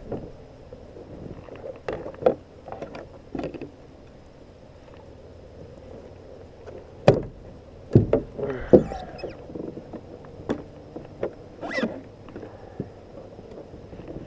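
Scattered, irregular knocks and bumps on a Native Watercraft pedal kayak's hull, with the loudest cluster about seven to nine seconds in.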